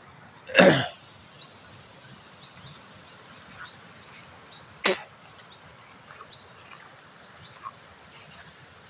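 Steady high-pitched drone of crickets and other insects, with many short rising chirps. A loud brief noise less than a second in and a sharp crack about halfway through stand out above it.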